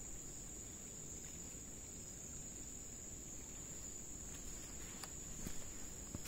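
Insects in the forest giving one steady, unbroken high-pitched drone.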